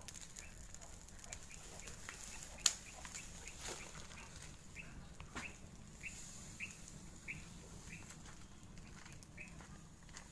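Straw fire burning down, giving a few sharp cracks, the loudest a little under three seconds in. Short high bird chirps repeat about every half second through the second half.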